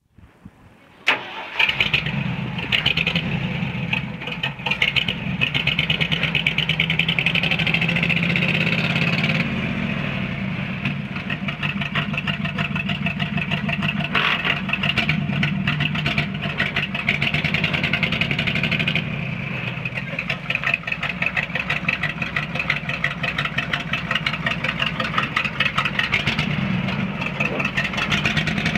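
1973 Ford 600 truck's engine starting about a second in, then running steadily with an even, fast pulse.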